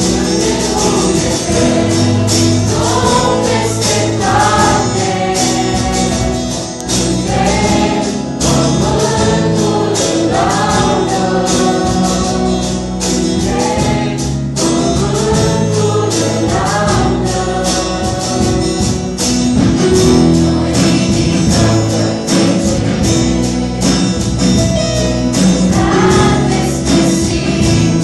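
Youth choir singing a Christian worship song, accompanied live by a drum kit, electronic keyboard and acoustic guitar, with regular drum and cymbal strikes under the voices.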